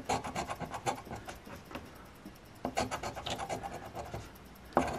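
A large coin scratching the coating off a paper lottery scratch ticket: quick strokes, several a second, in two runs with a short pause between.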